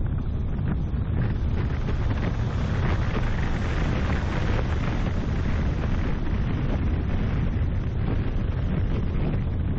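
Wind rushing and buffeting over the microphone of a camera mounted on the bonnet of a moving car, over steady road and engine noise.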